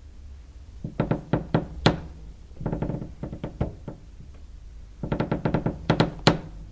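Wood creaking three times, each creak a drawn-out run of quick clicking pulses with a pitched tone, over a low steady rumble.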